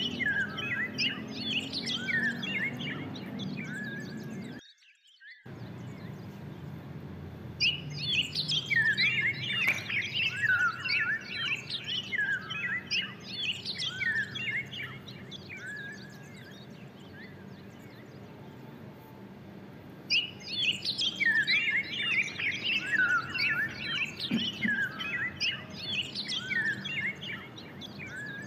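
Many small birds chirping and twittering in busy stretches with quieter spells between. The sound cuts out completely for about a second, roughly five seconds in.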